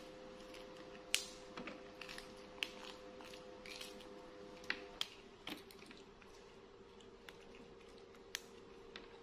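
Crisp snaps of fresh green bean pods being broken apart by hand, a few irregular clicks seconds apart, over a faint steady hum.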